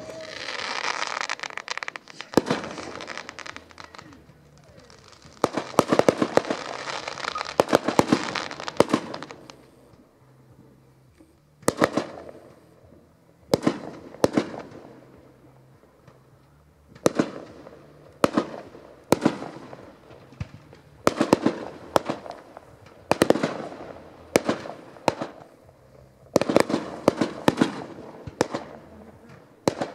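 Aerial fireworks going off one after another: sharp bangs of bursting shells at irregular intervals, some followed by a few seconds of dense crackling, the longest spells near the start and around the middle.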